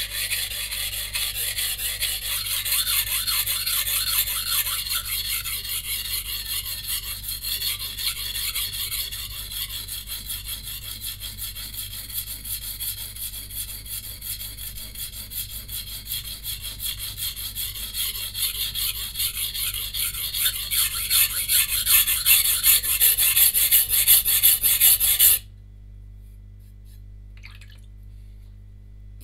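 VG10-core santoku blade scraped rapidly back and forth on a coarse whetstone in continuous, even strokes, grinding chips out of the edge at a raised sharpening angle. The strokes stop suddenly about 25 seconds in.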